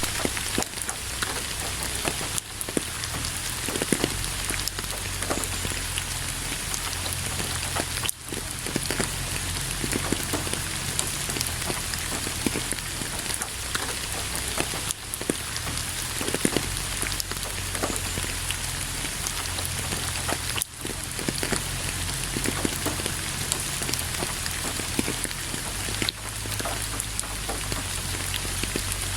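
Steady rain falling, with many close individual drops ticking through it. The sound briefly dips twice.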